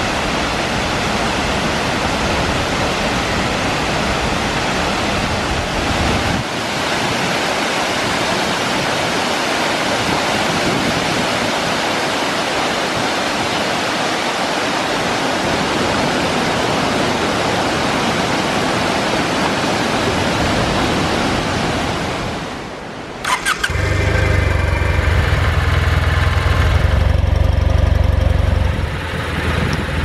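Waterfall pouring in a steady rush. About 23 seconds in, a few clicks, then the Kawasaki W800's air-cooled vertical-twin engine starts and runs loudly, easing off slightly near the end.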